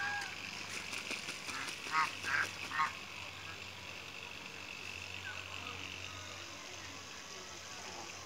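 Domestic goose honking: one short call at the start, then a quick run of four loud honks about two seconds in.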